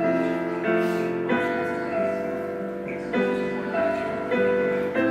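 Keyboard instrument playing a steady run of held chords, with a new chord struck about every half second or so.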